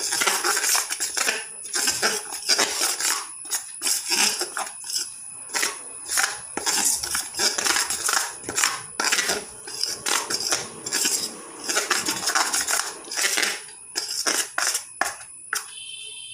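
Metal spoon scraping and clinking against the sides of a steel bowl in quick, irregular strokes, stirring dry spice powders together.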